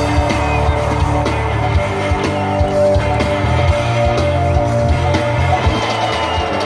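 Live band playing loud amplified rock music over a concert sound system, with guitar, held notes, a heavy bass line and frequent drum hits, heard from within the crowd.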